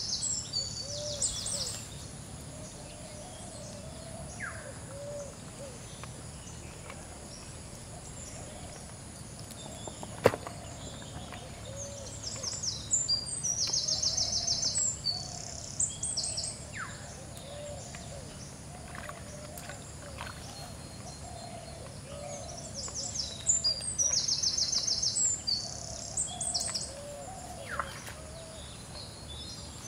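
Birds singing: a high, rapid chirping song that comes back about every eleven seconds over a continuous string of lower, repeated short calls. A single sharp click about ten seconds in.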